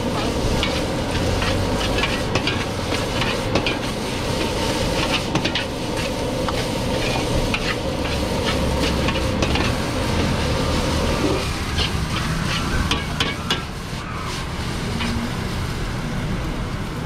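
Fried rice stir-fried in a wok over a gas burner: a metal ladle repeatedly scraping and knocking against the wok over steady sizzling. About eleven seconds in the steady sizzle drops away, and the clanks and knocks carry on.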